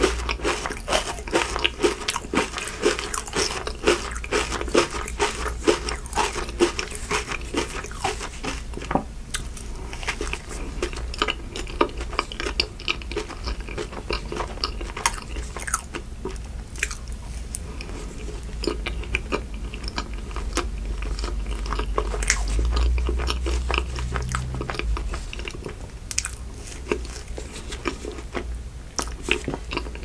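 Close-miked biting and chewing of an Oreo ice cream sandwich, a dense run of small wet mouth clicks and smacks.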